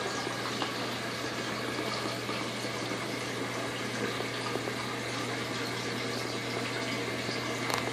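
Water running steadily through a 180-gallon reef aquarium's circulation, with a steady low hum from its pumps.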